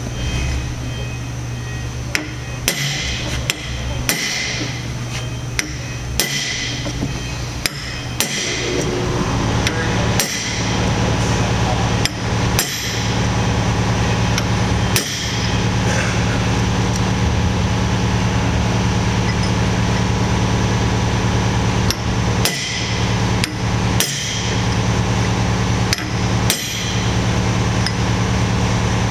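A hammer strikes a chisel set against a bearing lock nut, driving the nut round to take the play out of a tapered roller bearing. There are sharp ringing metal-on-metal blows in two runs with a pause between. A steady machine hum underneath gets louder about nine seconds in.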